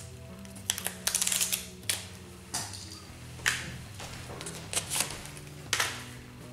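Magic: The Gathering booster pack wrapper being torn open and its cards pulled out and handled: a run of sharp crinkles and rustles, the longest about a second in, over quiet background music.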